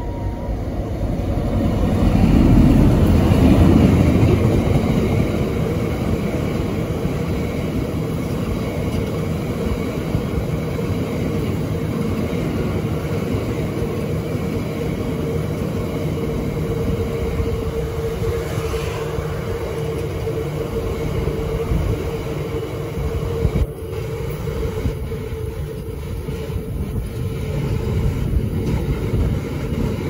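Class 60 diesel locomotive passing close by at the head of a freight train: its engine is loudest about two to four seconds in. A long rake of box wagons then rolls past with a steady rumble of wheels on rail and a faint tone running through it.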